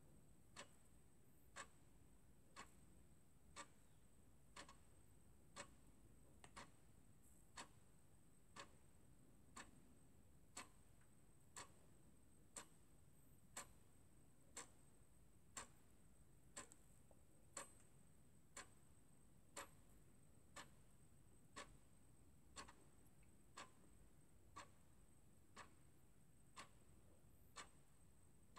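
Faint, even ticking, one tick about every second, over a thin steady high-pitched whine.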